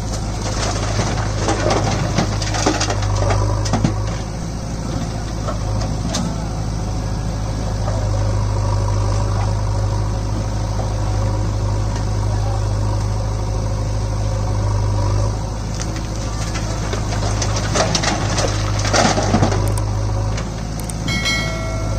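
Diesel engines of a JCB 3DX backhoe loader and a Swaraj 744 FE tractor running steadily, with loose stones clattering into the tractor's steel trolley as the loader bucket dumps, about a second in and again near the end.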